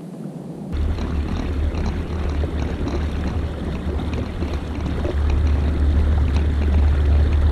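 Wind rumbling and buffeting on the camera microphone, starting less than a second in and growing louder about five seconds in.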